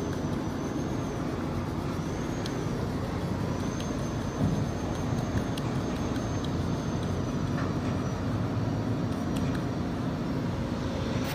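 Tour boat's engine droning steadily underway, with a continuous rush of wind and water.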